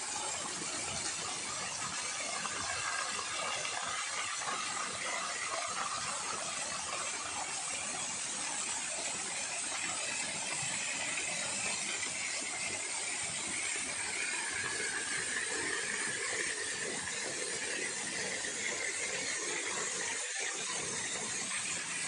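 Artificial waterfall: a steady rush of falling water.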